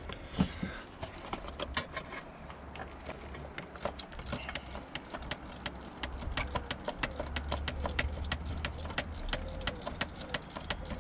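Socket ratchet clicking as the old spark plug is worked loose from the cylinder head: scattered clicks at first, then a fairly even run of about three to four clicks a second from about halfway through.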